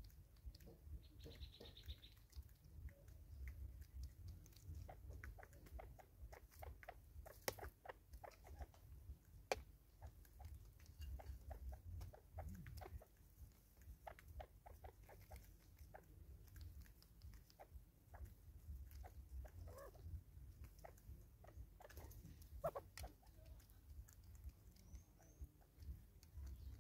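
Faint, irregular tapping and clicking of southern red-billed hornbills and a Natal spurfowl pecking seed from a wooden tree stump and a plastic bottle feeder, with a few louder pecks, over a low rumble.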